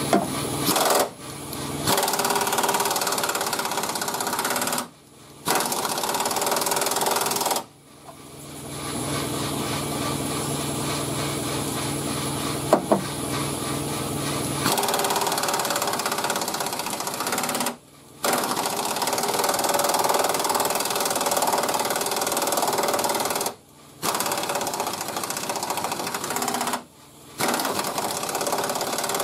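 Old Rodac pneumatic air ratchet running on a socket extension, rattling in long runs broken by several short pauses, as it is run back and forth on a rusted fender bolt to break it loose without snapping it.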